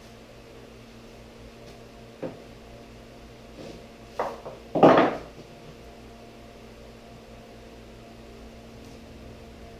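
A few knocks and clunks of wooden pieces being handled: one short knock about two seconds in, then a quick cluster a little after four seconds, the last and loudest near five seconds. A steady low hum runs underneath.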